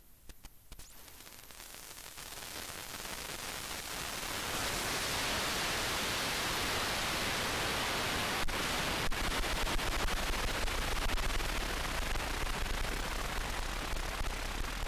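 Steady, loud static hiss that swells over the first few seconds and then holds, with a couple of faint clicks near the middle.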